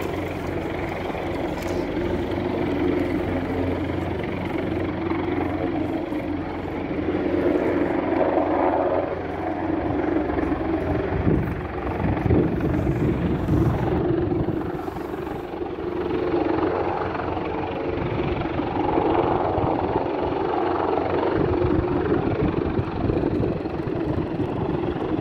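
A steady mechanical drone with a low hum beneath it, swelling and easing a little in loudness.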